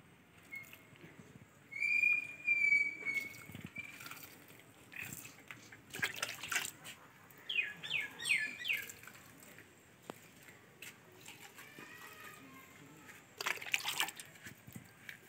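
Water poured from a plastic mug into potted plants, splashing onto the soil in a few short pours, with birds whistling and chirping around it.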